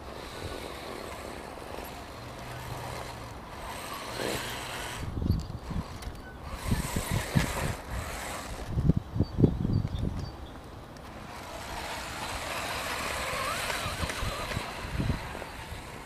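A 1:10 scale motor-on-axle RC rock crawler climbing a loose dirt and stone slope: a steady electric whir with crunching and scrabbling from the tyres, louder in several stretches. Gusts of wind rumble on the microphone.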